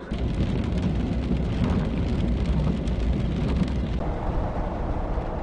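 Steady rain noise over a low, continuous rumble, as of a truck driving along a wet road in heavy rain. It starts abruptly.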